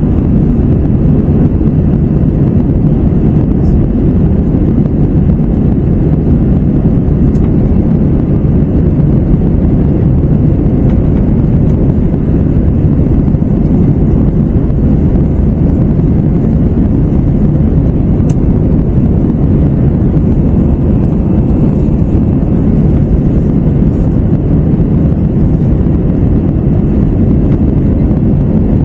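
Steady engine and airflow noise inside the cabin of an Airbus A321-111 with CFM56-5B turbofans, heard from a rear window seat during the climb: an even, low, loud rumble with a faint steady high whine above it.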